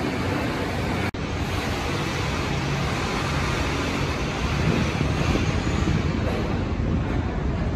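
Steady background rumble and hiss, like traffic or site noise, broken by a very brief dropout about a second in.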